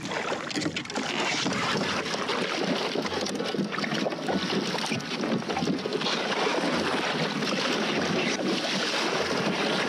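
Double-bladed kayak paddle stroking through lake water, splashing steadily, with wind rushing over the microphone.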